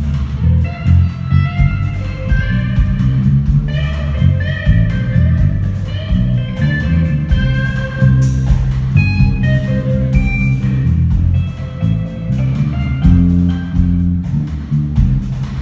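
Rock band playing live at a sound check: electric guitar over bass and drums, with no singing.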